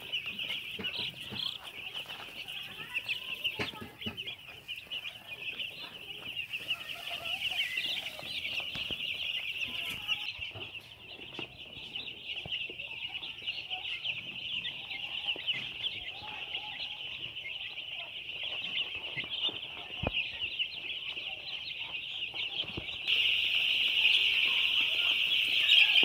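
A large flock of two-day-old broiler chicks peeping, a dense chorus of many overlapping high cheeps with no break. It grows louder near the end.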